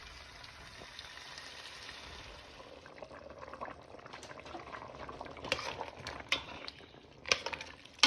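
Chicken cooking in a pot with a steady sizzling hiss. From about three seconds in come the scrape and clatter of a utensil and dishes, with a few sharp knocks near the end.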